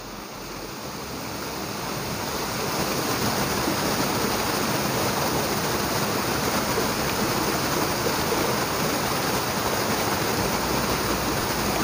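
River water rushing over rocks in a steady, full rush that grows louder over the first two or three seconds and then holds level.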